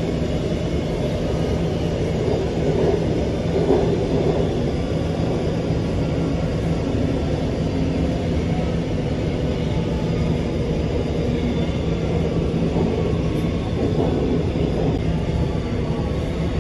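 Cabin noise of an Alstom Metropolis metro train running through a tunnel: a steady rumble of wheels on rail with a constant low hum from the drive.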